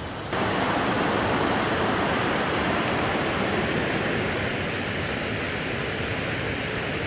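Waterfall on a mountain river: a steady, dense rush of falling water that cuts in sharply just after the start.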